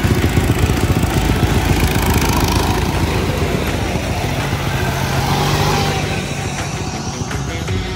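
Small engines of riding lawn mowers and a pit bike racing past close by, a fast rough pulsing whose pitch rises and falls as each machine goes by.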